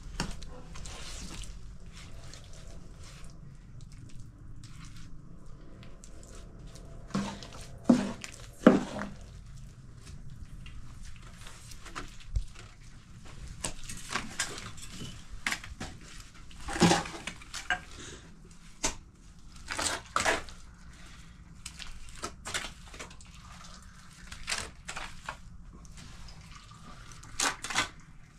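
A series of irregular sharp knocks and clatters, about a dozen spread unevenly, the loudest a pair close together about eight seconds in, over a steady low background noise.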